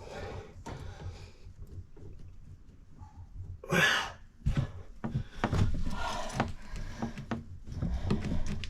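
Knocks, clicks and rustling of hands and tools working on plumbing pipes overhead, with a short loud rush of noise about four seconds in and busier clattering after it.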